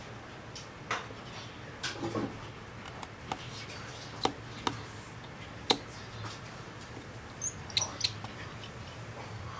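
Small sharp clicks and ticks, about ten scattered irregularly, some with a light metallic ring, from tools and small parts being handled on an iPhone XR during a screen replacement.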